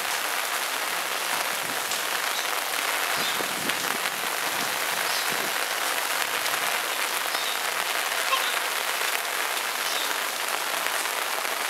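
Steady rain falling and pattering on surfaces, an even hiss that holds level throughout.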